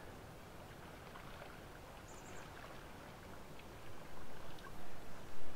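Quiet lakeside ambience with faint lapping water, a brief faint high chirp about two seconds in, and a few louder soft sounds near the end.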